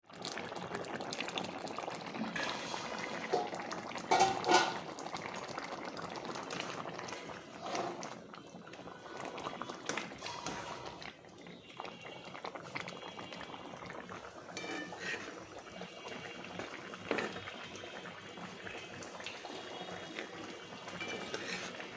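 Bottle gourd cooking in a pot, bubbling steadily, with two brief louder knocks about four seconds in.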